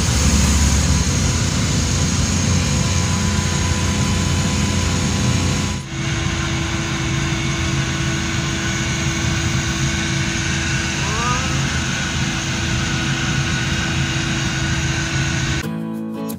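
Engine and road noise inside the cab of a small van being driven, steady with a constant hum, dipping briefly about six seconds in. Acoustic guitar music comes in near the end.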